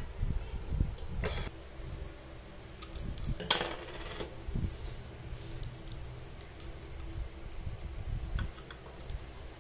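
Small metal tools and stand parts clinking and knocking on a table as the cutting stand is handled and assembled, with scattered clicks and a louder clatter about three and a half seconds in.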